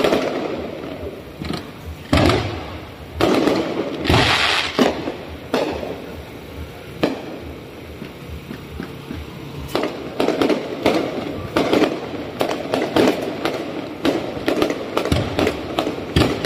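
Aerial fireworks shells bursting overhead: separate loud bangs for the first several seconds, with a longer crackle about four seconds in, then a dense, rapid run of bangs and crackling from about ten seconds in.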